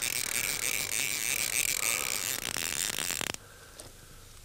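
Fly reel's ratchet clicking fast and continuously as line runs through it while a sea trout is played, then cutting off abruptly about three and a half seconds in.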